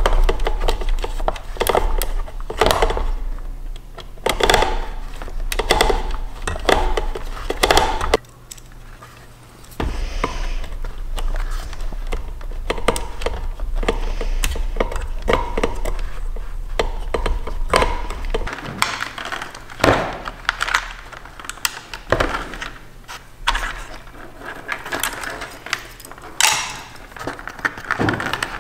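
Irregular small clicks, taps and scrapes from a screwdriver working the screw terminals of a PID temperature controller, with wires and plastic parts being handled, over a low steady hum that briefly drops out about eight seconds in.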